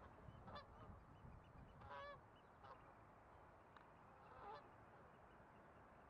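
Geese honking faintly, about four short calls spread over a few seconds, the one about two seconds in the loudest.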